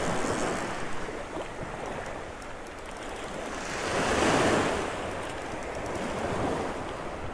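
Small surf waves washing onto a sandy beach, with one wave breaking louder about four seconds in.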